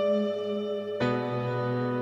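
Quiet, ambient passage of a post-metal song: sustained ringing chords, with a new chord struck about a second in.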